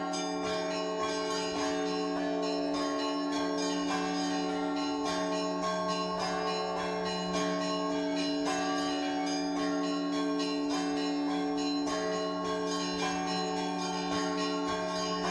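Russian Orthodox church bells ringing for Easter: many smaller bells struck in quick succession over the steady deep tone of a larger bell.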